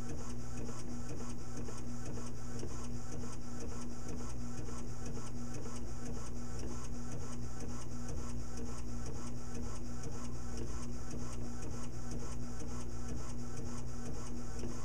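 Primera Bravo II disc publisher's built-in disc printer printing: a steady mechanical hum with a fast, even ticking that runs without a break.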